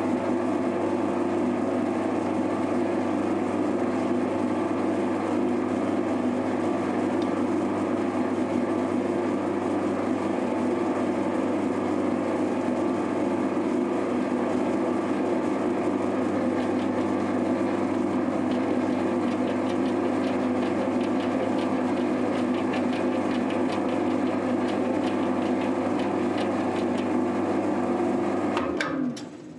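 Mini metal lathe running steadily, its motor and gearing giving a constant hum as the workpiece spins between chuck and tailstock center. From about halfway a faint rapid scratching joins the hum. Near the end the motor winds down, its pitch falling, and the sound cuts off.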